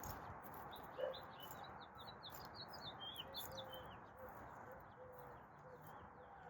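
Faint birdsong: many quick, high chirps from small wild birds, busiest in the first half, with a run of soft, short low notes in the second half typical of hens murmuring, over a faint steady outdoor hiss.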